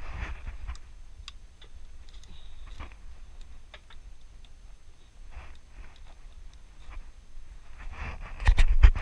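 Light scattered clicks and short rustles of hands handling fishing line against a bamboo railing, over a low steady rumble. Near the end a louder, rough crackling noise sets in.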